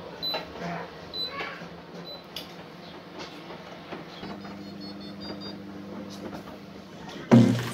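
Keys pressed on a Landis+Gyr P160 prepaid electricity meter's customer interface unit, each press giving a short high beep, then a quick run of short beeps at several pitches about four seconds in as the token is entered, over a low steady hum. Loud guitar music starts near the end.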